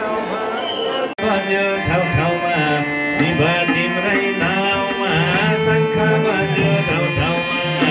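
Devotional bhajan music played through loudspeakers: a singing voice over steady held notes and hand-drum beats. There is a brief break about a second in, after which the music comes back in.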